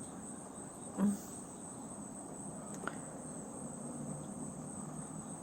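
Crickets trilling steadily in a high, even chorus. A brief low sound stands out about a second in.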